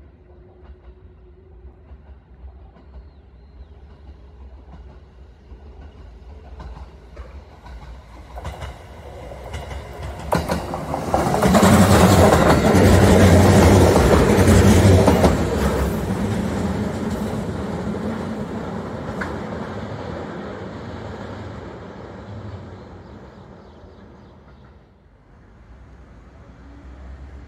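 An electric train on the JR Iida Line approaching, passing close by with its wheels clacking over the rail joints, and fading away as it goes. It builds gradually, is loudest a little before halfway through, then dies down slowly.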